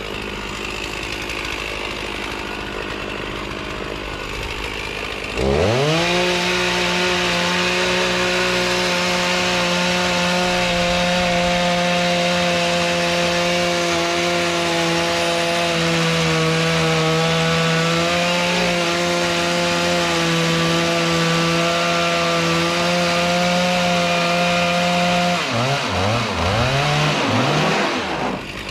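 Two-stroke chainsaw, running low at first, then revved up sharply about five seconds in and held at a steady full-throttle pitch for about twenty seconds. Near the end the throttle is let off and blipped a few times, so the pitch falls and swoops up and down.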